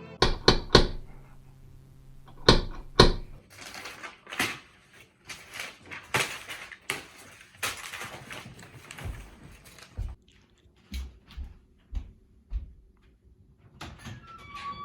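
A series of sharp knocks and taps, with rustling handling noise between them and a few duller thumps near the end.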